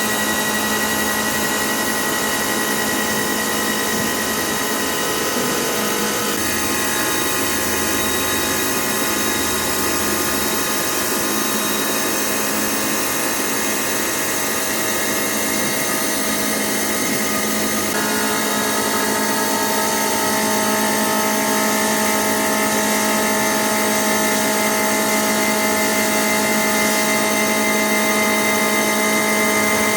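Hitachi Seiki VM50 three-axis CNC vertical mill cutting steel with a 12 mm end mill spinning at 2,800 rpm: a steady, loud machining whine of several tones over a hiss. The tones shift in pitch about six seconds in and again about eighteen seconds in.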